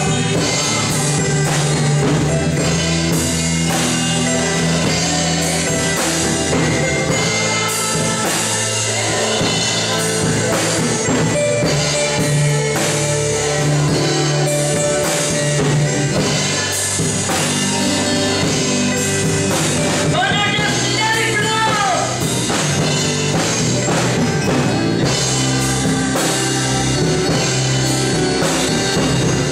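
Worship music with a drum kit keeping a steady beat under bass and keyboard-like chords; a wavering held melody note rises and falls about two-thirds of the way through.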